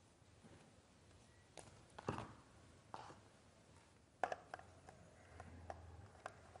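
Faint, scattered clicks and taps of a screwdriver and wire working the terminal screws of electrical fittings on a wooden wiring board, with a sharper click about four seconds in.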